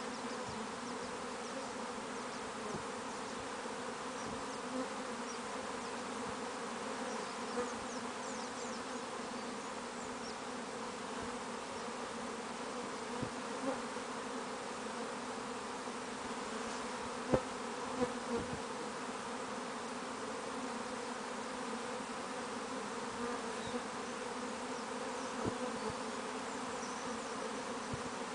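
Dense, steady buzzing of a huge western honey bee swarm arriving at and moving into a hive box: one continuous hum with overtones, with a few faint ticks scattered through it.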